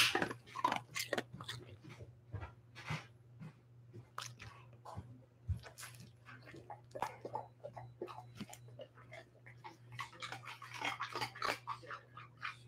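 A dog chewing close to the microphone: irregular crunchy clicks and mouth noises, thickest near the end.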